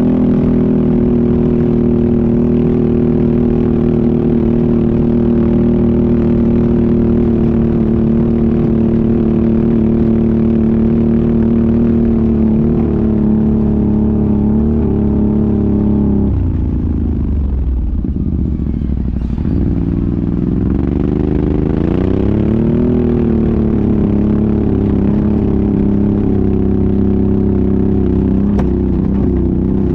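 ATV engine running steadily under load, dropping in revs about halfway through as the throttle is eased off, then picking up again and settling back into a steady pull.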